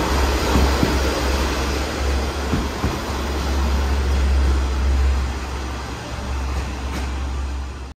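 JR West KiHa 40-series diesel railcars pulling out, with a low diesel drone and a few wheel clicks over rail joints. The sound fades over the last few seconds as the train draws away.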